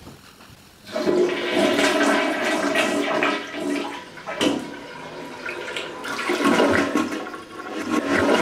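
Toilet flushing: a loud rush of water starts about a second in and swirls down the bowl, eases off about halfway through, then surges again near the end.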